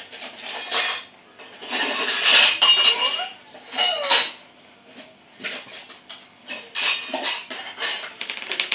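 Clinking and clattering of small hard objects in several short bursts, some hits ringing briefly.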